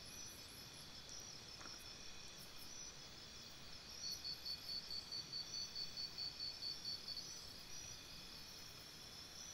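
Faint insect chirping, like crickets, runs as a steady high trill. From about four seconds in to about seven and a half seconds, one chirp pulses evenly at about four a second.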